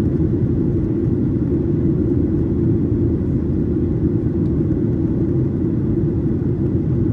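Steady low rumble of a Boeing 737-800's CFM56-7B jet engines and airflow, heard from inside the passenger cabin, with a faint steady whine above it.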